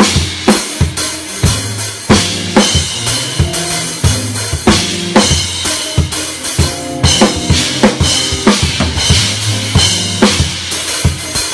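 Drum kit played live in a steady groove, kick drum, snare and cymbals, over held notes from the rest of the gospel band.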